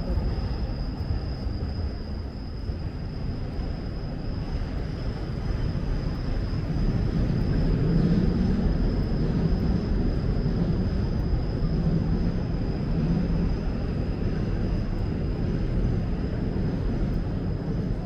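Urban ambience: a steady low rumble of passing vehicles that swells about seven seconds in, with a thin steady high whine above it.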